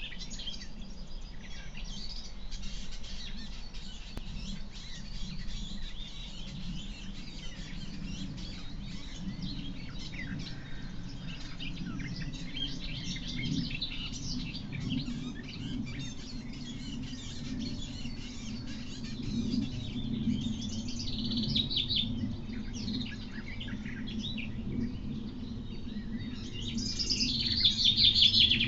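Wild birds singing, many overlapping songs and chirps, with a loud, close, rapid trilled song near the end. A steady low hum runs underneath.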